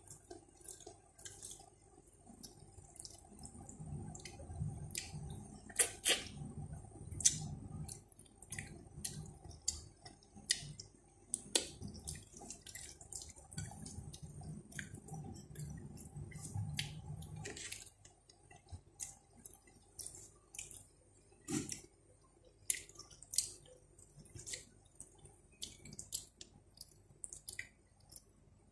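Close-miked eating sounds: many sharp wet mouth clicks and smacks, over a low chewing rumble that stops about 18 seconds in, leaving scattered clicks.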